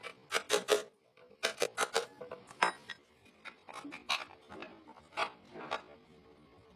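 Hammer striking a wood chisel as it cuts into a tree stump: sharp knocks in quick runs of three or four, the loudest about two and a half seconds in, then fainter scattered knocks.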